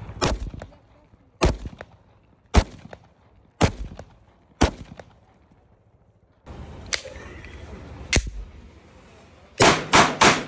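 Pistol shots fired one at a time, about one a second, five in all. Later comes a single shot, then a quick string of about five shots near the end.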